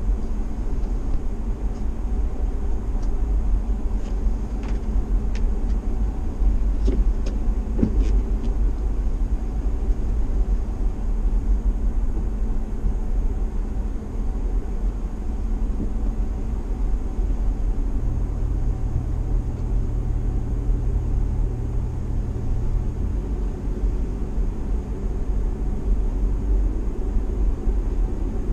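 Steady low rumble of a car driving, its engine and tyre noise heard from inside the cabin. A few faint clicks come about four to eight seconds in.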